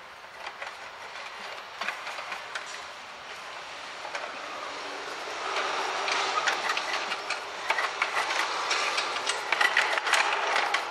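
Metal scraping, clanking and rattling as a diesel exhaust downpipe and its heat shield are forced up into place past the surrounding heat shields. Many small knocks and scrapes, growing louder and busier about halfway through.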